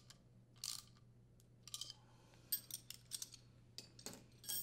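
Socket ratchet clicking faintly in short strokes as the nut and bolt on a furnace blower motor's mounting bracket are tightened, with a quicker cluster of clicks in the middle.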